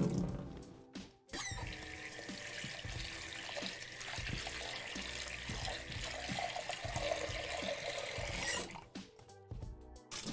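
Kitchen tap running into a sink while shrimp are rinsed in a metal bowl, a steady rush of water that starts about a second in and is shut off near the end. A moment of music plays at the start.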